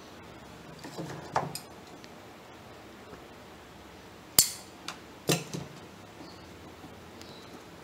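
Bonsai wire cutters snipping metal wire with one sharp snap about four and a half seconds in. Softer scraping and clicking from the wire being handled comes about a second in and again just after the snap.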